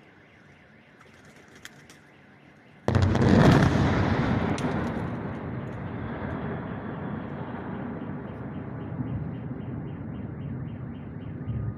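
A large distant explosion: a sudden heavy boom about three seconds in, followed by a long rolling rumble that slowly fades. A car alarm beeps in a steady rhythm in the background.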